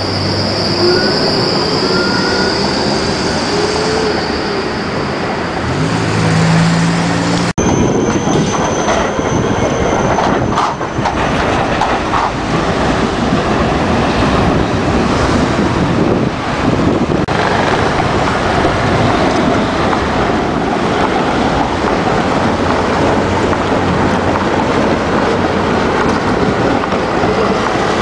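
Berlin low-floor trams in street running. First a tram pulls away from a stop, its drive whining upward in pitch under a high steady tone. After a cut, a tram rolls through a curved track junction with a high-pitched wheel squeal lasting a few seconds, then a steady wash of rolling and city traffic noise.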